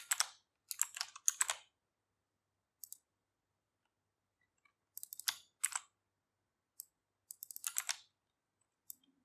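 Computer keyboard keys clicking in short bursts of typing and pasting, with gaps of silence between the bursts.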